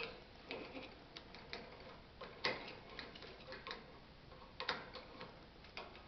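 Irregular light clicks and taps of a parrot's beak and claws on the wire bars of its cage as it climbs, the loudest about halfway in and again near the end.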